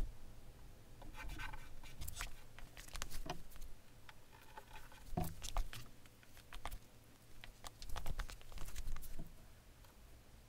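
Handling noises as masking tape is pulled, pressed onto a car's painted body panel and a small stick-on badge is fitted against it: scattered clicks, crinkles and light taps, with a soft thump about halfway through.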